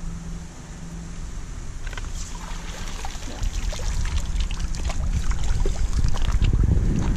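Splashing as a long-handled dip net is scooped through shallow water and lifted out, starting about two seconds in, followed by water streaming and dripping from the mesh. Wind rumbles on the microphone and grows louder toward the end.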